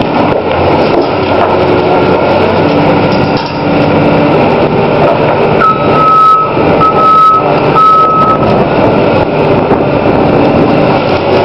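CAT 320D hydraulic excavator working a pulverizer attachment on a reinforced concrete roof canopy: its diesel engine running under load, with concrete crunching and rubble falling. About halfway through, a high steady whistle sounds for about three seconds, broken twice.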